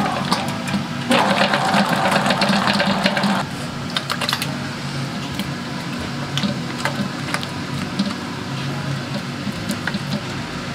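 Stand mixer running, a steady motor hum with clattering from its gears and beater in the bowl. It is louder and brighter for a couple of seconds about a second in, then settles to a lower level.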